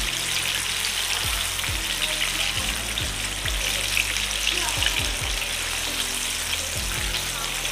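Buttermilk-coated chicken pieces deep-frying in oil in a kadai: a steady sizzle with fine crackling.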